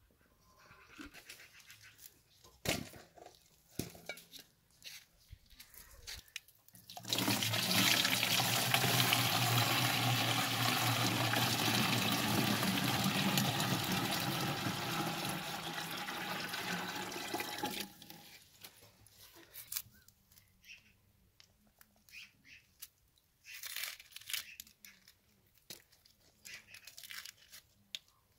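Well water poured in a steady gush into a plastic jerrycan for about ten seconds, starting some seven seconds in and stopping abruptly. A few faint knocks come before it.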